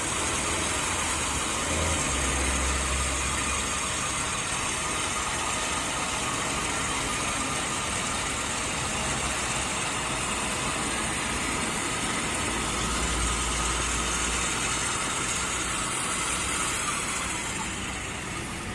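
Portable water well drilling rig running steadily: a continuous machine noise with a steady whine, easing slightly near the end.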